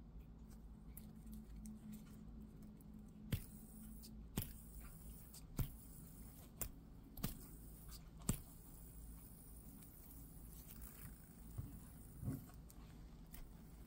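Titanium-and-copper bead spinner being handled: a series of about nine sharp, short clicks at irregular intervals, the strongest from about three to eight seconds in, over a faint steady hum.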